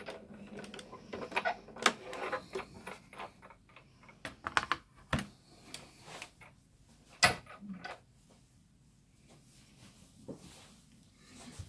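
Clicks, knocks and clatter of a Sizzix Big Shot die-cutting machine and its clear acrylic cutting plates being handled as the machine is lifted off the plates, with one sharp knock about seven seconds in, then faint rustling.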